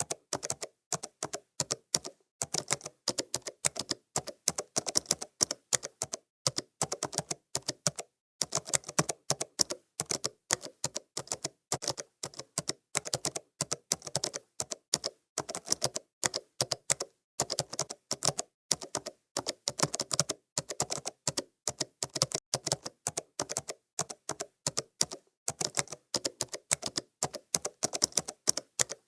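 Computer keyboard being typed on at a slow, uneven pace: key clicks come in short runs of several a second, with brief pauses every few seconds.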